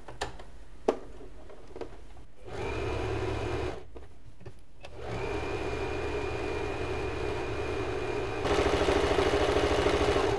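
Usha Janome Fashion Maker electric sewing machine stitching a decorative embroidery pattern. A couple of clicks come first, then the machine runs in two stretches with a pause between, louder over the last two seconds before it stops.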